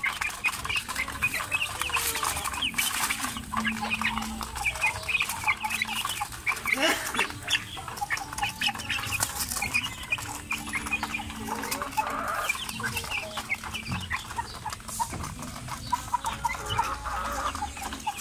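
A flock of month-old chickens clucking and peeping continuously, many short high calls overlapping, while they peck at feed on a wooden board.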